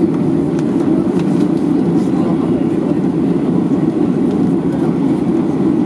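Cabin noise of a Boeing 737-800 rolling on the ground, its CFM56-7B engines running: a steady low noise with a few faint clicks and rattles.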